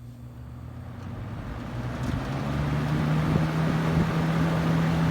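1972 Lasko Model 4700 20-inch box fan starting up on high: the motor hum and the rush of air from the blade build over the first couple of seconds, then run steadily. The motor has a slight buzz that the owner puts down to a loose winding.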